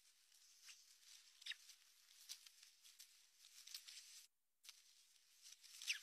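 Faint scattered clicks and rustles of sticks in an osprey nest as a common raven pecks among the chicks, with two short, high, falling squeaks, one about a second and a half in and one near the end. The sound cuts out completely for a moment a little after four seconds.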